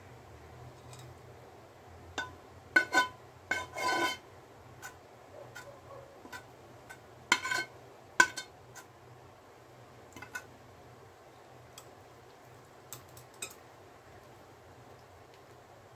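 Steel spoon and steel chopsticks clinking and scraping against a steel saucepan and a bowl while cheesy ramen is served out, in scattered sharp clinks, loudest around three to four seconds in and again around eight seconds in. A faint steady low hum lies under it.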